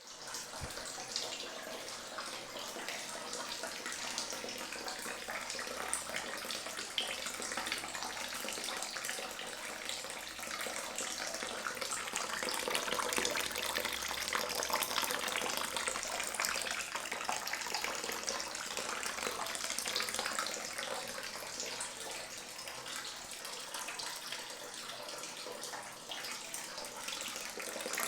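Water running from a tap into a bucket, a steady splashing gush that carries on without a break.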